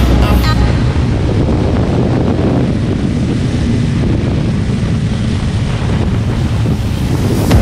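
Heavy wind rushing over the microphone of a Honda CBR250R ridden at speed, with the motorcycle's engine running steadily underneath.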